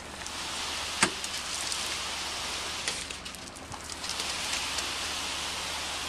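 Steady rushing hiss of wet concrete being poured into the trench behind the steel pool wall, with a sharp click about a second in.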